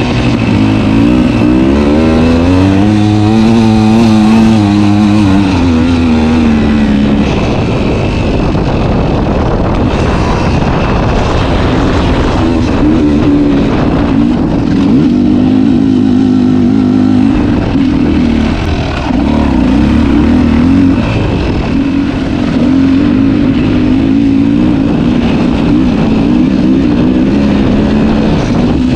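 Two-stroke enduro dirt bike engine under way off-road. The engine revs up and falls back over the first several seconds, then holds a fairly steady pitch with small wavers of the throttle.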